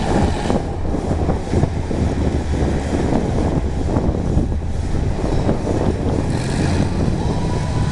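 Monster truck engine running as the truck drives over sand mounds, a low steady drone.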